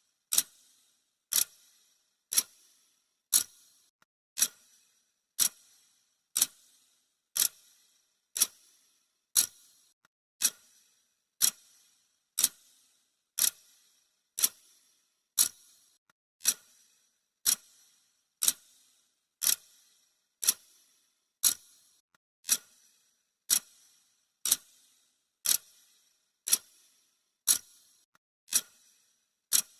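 Clock ticking sound effect marking the countdown: sharp, bright ticks at a steady one per second.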